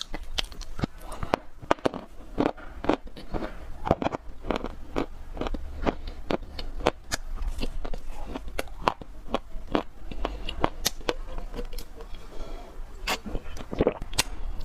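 Dry clay crunching and crackling in many small, sharp, irregular cracks, several a second.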